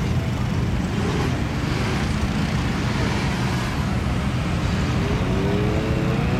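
A large vehicle engine running steadily, under a rushing hiss of a fire hose spraying water onto a smoking mud truck.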